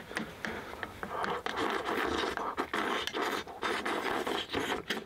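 A person slurping hot food and broth from a metal bowl, a continuous wet, crackly sucking with small clicks; near the end the bowl is tipped up to the mouth to drink.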